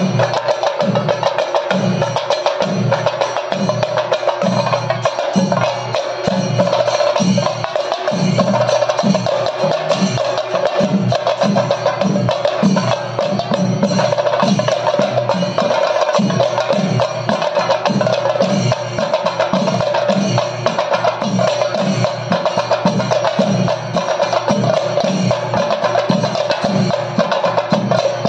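Chenda drum ensemble playing theyyam percussion: a dense, rapid stick roll over a steady beat of deeper strokes, loud and without a break.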